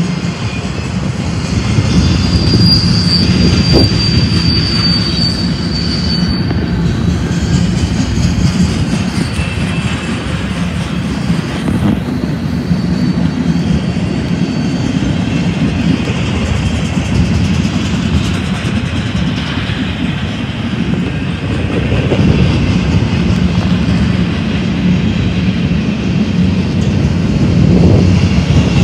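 Empty TTX double-stack well cars of a BNSF freight train rolling past close by: a loud, steady rumble of steel wheels on rail. A high squeal rides over it from about two to six seconds in, with fainter returns later.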